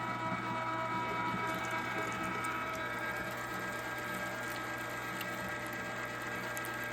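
LEM Big Bite #8 half-horsepower electric meat grinder running steadily, its motor giving a constant hum and whine, while grinding venison through the coarse plate.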